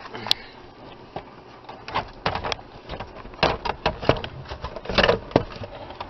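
Plastic knee bolster trim panel under a 1998 Chevrolet S-10 dash being jerked loose from its snap-in clips: a series of irregular sharp clicks and knocks.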